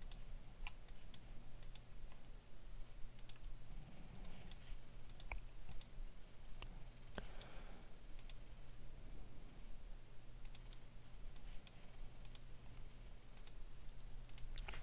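Faint, scattered clicks of a computer mouse and keyboard, often in quick pairs, over a low steady hum.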